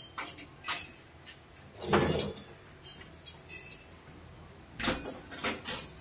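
Small metal motorcycle parts clicking and knocking as they are handled during a master cylinder fitting, with the loudest knock about two seconds in and a few more near the end, over faint background music.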